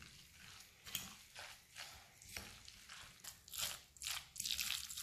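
A fork mixing grated potato, carrot and red pepper with egg and breadcrumbs in a glass bowl: faint, irregular strokes that come faster toward the end.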